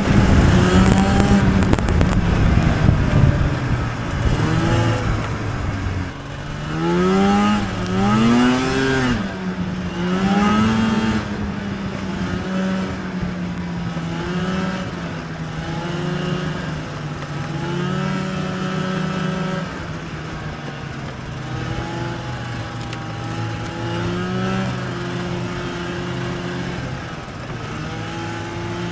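Two-stroke snowmobile engine heard from the rider's seat under way. Its pitch rises and falls with the throttle several times in the first half, then holds fairly steady with small swells, over wind and track noise that is loudest in the first few seconds.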